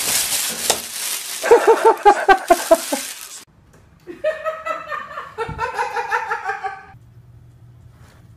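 A person laughing in rapid bursts, starting with a loud noisy burst, then breaking off briefly before a second stretch of laughter.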